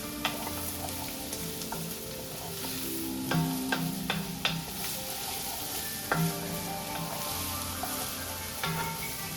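Chopped onion, carrot and celery sizzling in olive oil in a pan over medium heat, with a steady hiss. A spoon stirring the vegetables scrapes and clicks against the pan several times.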